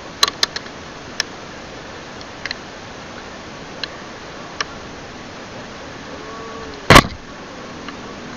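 Scattered sharp clicks and knocks, with several in quick succession near the start, then one loud thump about seven seconds in, over a steady background noise.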